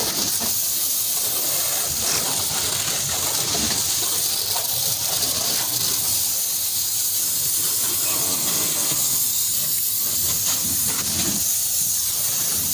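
High-pressure water jet from a washer spray gun hitting the car body panels and wet ground, a steady hiss that runs without a break while the shampoo is rinsed off.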